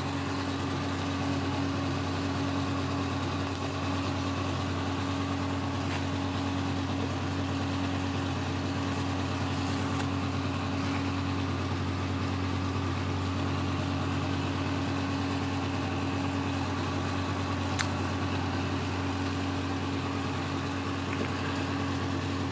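Steady, unchanging low machine hum, with one faint click about three-quarters of the way through.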